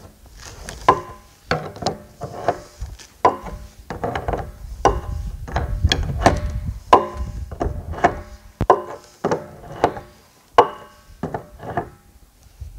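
Large wrench tightening the reverse-threaded nut of a spigot fitting on a plastic rain barrel: a string of short clicks and knocks, about two a second, each with a brief ring, as the nut is worked tight.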